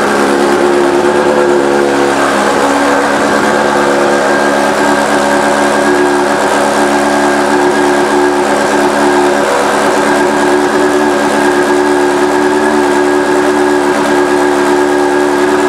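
Honda CBR600 F4i inline four-cylinder engine idling steadily through an aftermarket exhaust.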